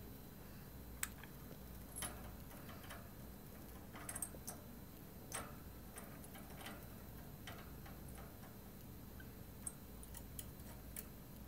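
Light, irregular clicks and taps, with a small cluster about four seconds in, from a cinnamon conure moving on a wooden perch, her beak and feet tapping the wood.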